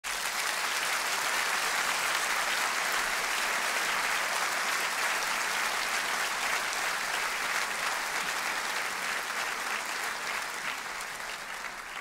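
Audience applause in a concert hall, a dense steady clapping that eases off slightly near the end.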